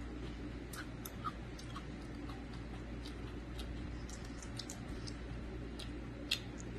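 Cooked shrimp being peeled by hand: the shell cracks and crinkles in small, irregular clicks, with a sharper click about six seconds in, over a low steady hum.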